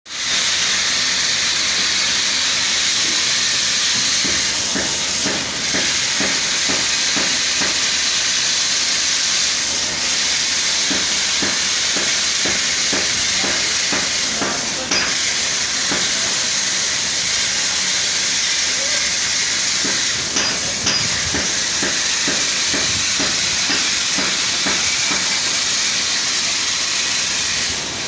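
Laser marking machine at work marking a metal ring: a steady hiss that comes on suddenly, with faint crackling ticks through it.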